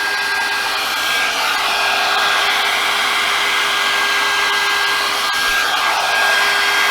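John Frieda hot air brush blowing steadily as it dries damp hair: an even rush of air with a constant motor whine.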